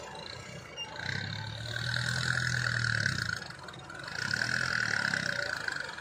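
XCMG hydraulic excavator's diesel engine running under load with a high hydraulic whine, swelling twice for a few seconds each as the bucket digs and lifts a load of mud.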